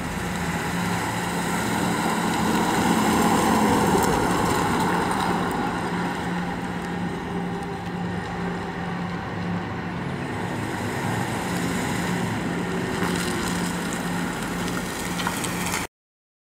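1957 Ford Fairlane 500's engine and exhaust running at a low, steady note as the car drives slowly past and away. The sound cuts off suddenly near the end.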